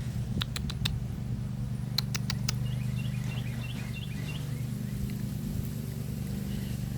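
Tractor engine running steadily with a low hum. There are two groups of sharp clicks or knocks in the first few seconds, and a quick run of short high chirps a little later.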